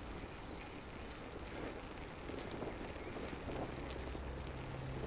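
Faint sound of a bicycle being ridden: a soft rolling hiss with a few light clicks. A low steady hum comes in about three and a half seconds in.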